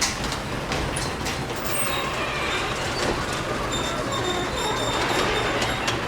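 Garage door travelling along its tracks: a steady rumble with scattered clicks and thin, high squeaks throughout.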